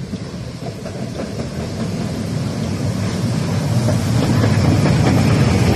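Harz narrow-gauge steam locomotive 99 7239-9, a 2-10-2 tank engine, and its coaches rolling in along the track. The noise grows steadily louder as the train closes in and passes at close range.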